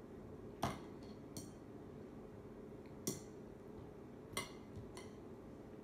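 A small utensil clinking lightly against a plate and the squash dish, five times and unevenly spaced, the loudest about half a second in. A steady faint hum lies underneath.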